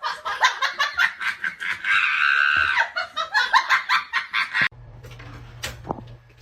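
People laughing hard in rapid bursts, with a high squeal of laughter in the middle. About three-quarters of the way through it cuts off suddenly to a quieter stretch with a steady low hum.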